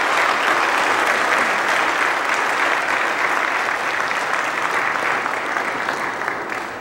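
A congregation applauding, many hands clapping together, fading toward the end.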